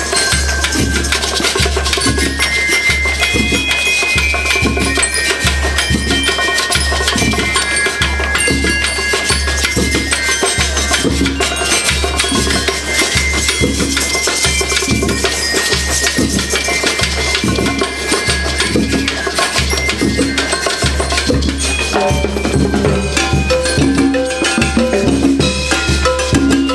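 School rhythmic band playing: a drum section beats a steady, even rhythm under a ringing bell-lyre melody.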